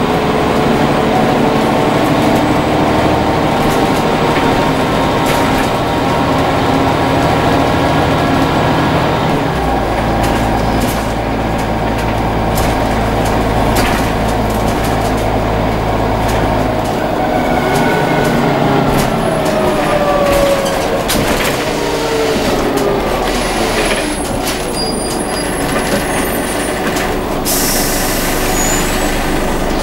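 Scania N94UA OmniCity bus running on the move, heard from inside the passenger saloon. The engine note steps between gears, a whine falls in pitch partway through, and a short hiss of air comes near the end.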